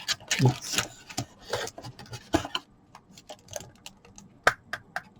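Handling of a small plastic USB switch box and its packaging: rubbing and rustling in the first half, then scattered sharp clicks and light taps, the loudest a little past halfway.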